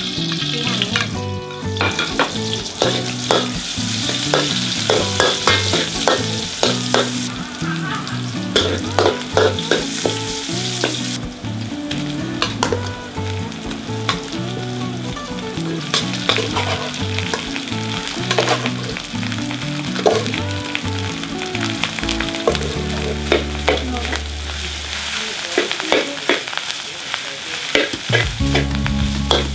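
Hot oil sizzling in a steel wok as chopped shallots and scallions go in. Then egg-yolk-coated cooked rice is stir-fried in it, with a metal spatula scraping and clicking against the wok in many sharp strokes.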